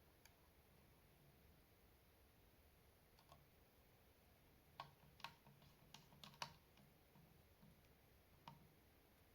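Faint, scattered clicks and taps from handling small parts inside an opened mini PC, mostly a quick cluster of about six a little past halfway, against near silence.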